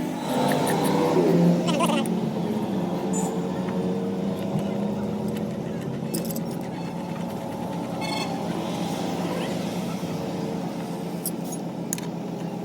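A steady engine or machine hum with a shift in pitch in the first couple of seconds, and a few light metallic clinks scattered through it.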